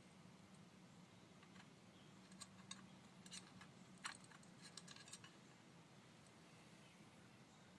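Faint light clicks and metallic clinks, scattered from about a second and a half in to about five seconds in, of clutch plates being worked out of a motorcycle clutch basket by hand.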